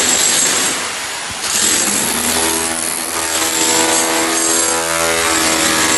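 A power tool runs while a floor is broken up, with dense grinding and rattling noise throughout. A steady hum comes in about two seconds in.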